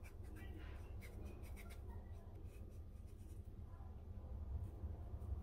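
Usuba (single-bevel Japanese vegetable knife) sawing back and forth in short strokes through a daikon radish as it is turned, peeling it into one thin continuous sheet (katsuramuki). The sound is a faint, soft, irregular scratchy slicing.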